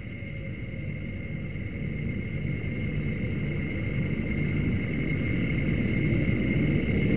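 A steady low rumble with a thin, high, steady whine above it, growing steadily louder.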